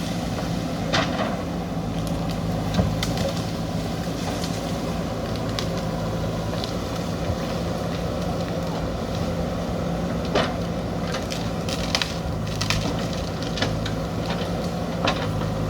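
JCB backhoe loader's diesel engine running steadily under load while digging earth, with scattered sharp cracks and knocks about a second or two apart.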